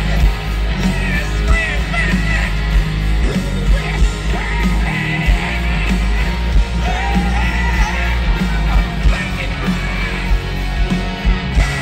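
Live rock band with electric guitars, keyboards and a horn section, and a man singing lead into a microphone.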